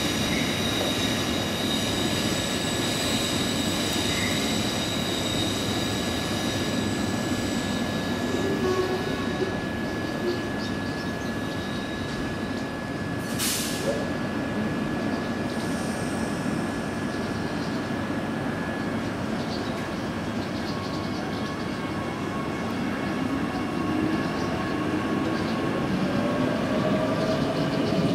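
Queensland Rail electric multiple-unit train at a platform: a steady electrical whine of several high tones over a continuous rumble and hum. A brief hiss comes about halfway through, and a tone rises over the last few seconds, as a train's motors pick up speed.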